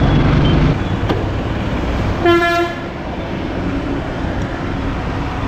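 Royal Enfield Bullet 350's J-series single-cylinder engine running with a steady low exhaust rumble, which drops in level just under a second in. About two seconds in, one short vehicle-horn toot sounds over it.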